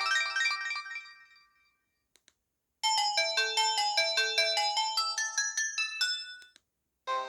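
Samsung GT-E1080W mobile phone playing its built-in polyphonic ringtones: one melody fades away in the first second or two, and after a short pause another starts about three seconds in, a quick tune of short electronic notes that runs for about four seconds and stops. The next tone begins just before the end.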